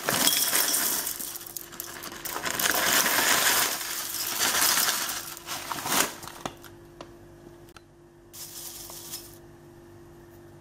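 Dried hibiscus flowers poured from a crinkly foil bag into a ceramic bowl, the dry pieces falling and rattling against the bowl while the bag rustles, for about six seconds. After that comes lighter, scattered rustling as the flowers are handled.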